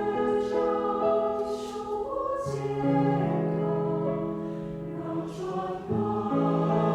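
A choir singing slow, sustained chords in harmony. The chord shifts about two and a half seconds in and again near the end, with soft sung consonants between the held notes.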